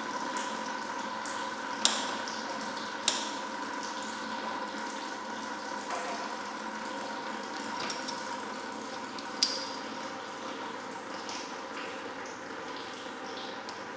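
Engine coolant draining from a disconnected hose into a bucket, a steady splashing pour as the bucket fills. A few sharp clicks cut through it, about two, three and nine seconds in.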